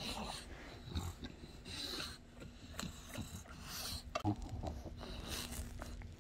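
A bulldog breathing noisily in short bursts, about one a second, while mouthing and chewing a rubber treat toy, with a few knocks of the toy; the loudest knock comes about four seconds in.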